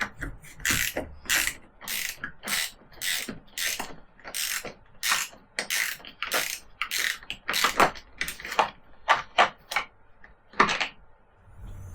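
A ratchet mechanism being worked in quick, even strokes, a short rasp about twice a second, stopping about a second before the end.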